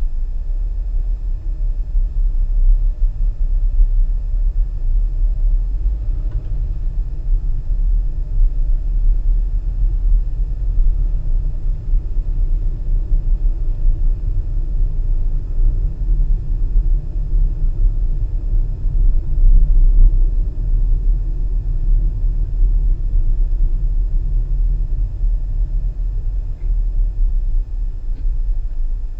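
Low, steady rumble of a car driving slowly in city traffic: engine and road noise heard inside the cabin.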